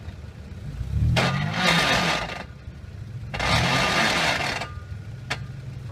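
Off-road 4x4's engine revving up twice, each time rising in pitch for about a second, as its tyres spin and scrabble in loose dirt on a steep ledge; the engine runs low in between. A single sharp click near the end.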